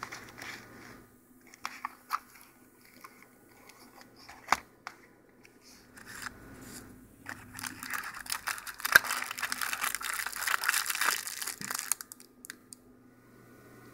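Small cardboard box being handled and opened, with scattered clicks and taps. About seven seconds in comes a few seconds of dense crinkling and rustling as a mini pedometer and its paper leaflet are slid out of the box.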